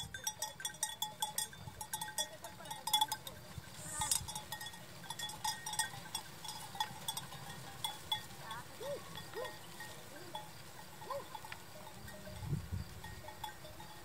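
Small bells on a flock of sheep clinking irregularly and faintly, with an occasional bleat.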